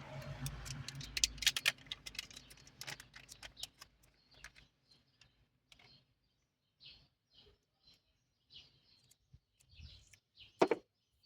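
Packaging and parts being handled: a run of clicks and rustling for the first few seconds, then faint high bird chirps every second or so, with one sharp knock near the end.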